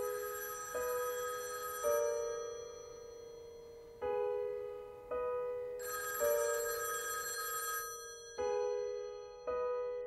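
A telephone ringing with a chiming electronic ring: three bell-like notes about a second apart, the group repeating roughly every four seconds.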